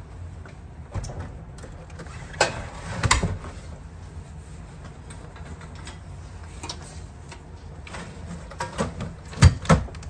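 Knocks and thumps as a boxy all-in-one diesel heater unit is set down on a wooden shelf, a few sharp knocks in the first few seconds, then a cluster of louder thumps near the end as a soft carry bag is pushed in beside it, over a low steady hum.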